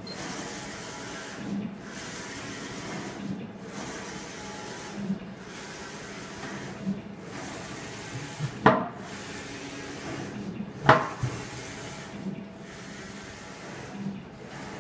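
Wide-format eco-solvent inkjet printer running a print job: the print-head carriage shuttles back and forth across the media, its noise dropping out briefly at each reversal about every 1.8 seconds. Two sharp knocks stand out about 9 and 11 seconds in.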